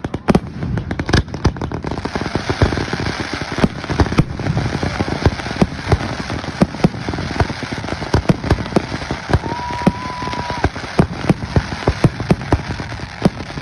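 Fireworks display going off: a dense, unbroken run of bangs and crackling pops, several a second. About ten seconds in, a steady tone sounds for about a second.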